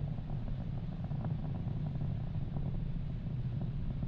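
Low, steady rumble of the Falcon 9 rocket's first-stage engines in ascent, with faint crackle above it.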